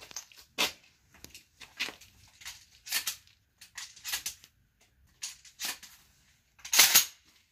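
Handling noise of a 12-gauge pump shotgun and slug shells being loaded at the bench: a string of light clicks and rustles, with one louder scraping rustle near the end.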